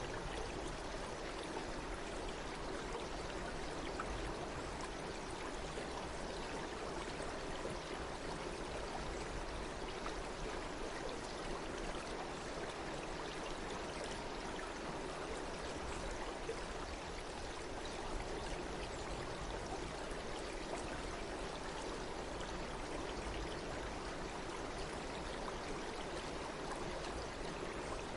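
Steady running water of a stream, an even rush with fine splashing and trickling that never lets up.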